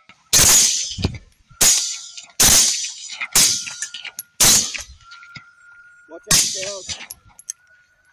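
A volley of rifle shots fired at a running herd of wild hogs: six loud, sharp cracks at uneven intervals of about one to two seconds, each with a short ringing tail.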